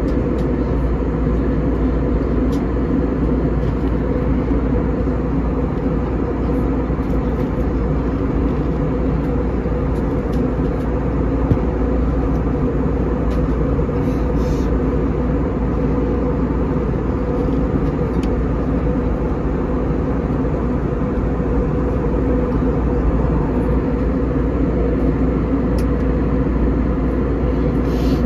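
Steady cabin drone of an Airbus A320 in flight, heard from a window seat: jet engine and airflow noise with a constant low hum running through it.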